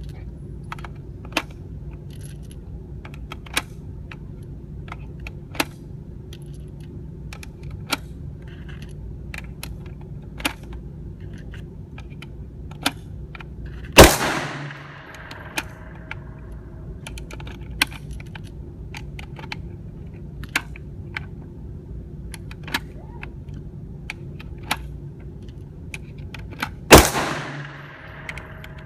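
Two loud single gunshots about thirteen seconds apart, each with a long echoing tail, over a steady run of fainter sharp cracks every second or two.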